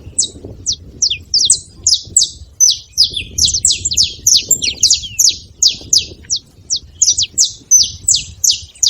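A flock of saffron finches chirping busily: many short, sharp, falling chirps overlap in a continuous chatter.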